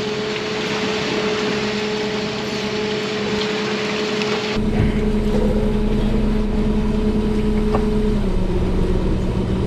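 Fishing boat's engine running with a steady hum, with sea and wind hiss over it in the first half; about halfway the hiss cuts out and a deeper rumble takes over.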